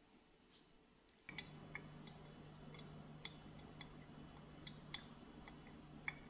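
Coffee dripping from an aluminium Vietnamese phin filter into a glass: faint, irregular small ticks, about two a second, over a steady low hum that starts about a second in.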